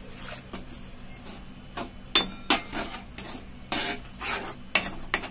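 Metal spoon stirring and scraping in a steel kadai, working milk into roasted rice flour and sugar for laddu. The irregular scrapes and clinks start about two seconds in.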